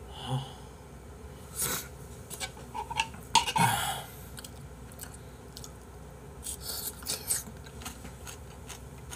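A person eating porridge: a metal spoon clicking and scraping against the bowl, with mouth sounds of eating, in short scattered bursts.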